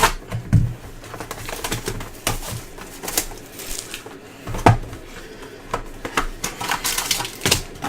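Trading cards and their plastic holders being handled and sorted on a table: a run of irregular light clicks and taps, with sharper knocks a little past halfway and near the end.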